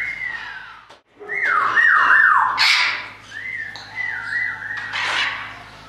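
African grey parrots calling: a run of whistles that each slide down in pitch, several in quick succession, broken by two harsh squawks.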